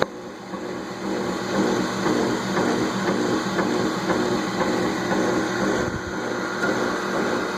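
Homemade electric meat grinder, a 1/2 horsepower motor driving through a 15:1 gear reduction, running steadily under foot-pedal control.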